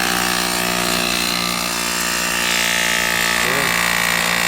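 Small air compressor running steadily, pumping air pressure of about two and a half bar into a homemade injector-flushing rig.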